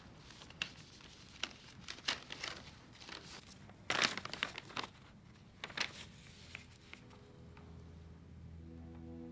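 Paper rustling and crinkling as a letter is opened and its folded sheet unfolded: a series of sharp, crisp rustles, loudest about four seconds in. Near the end a low held musical note fades in.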